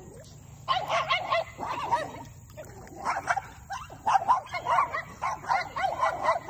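Dogs yelping and barking in a scuffle: rapid short, high cries in bursts starting about a second in, with a brief lull in the middle.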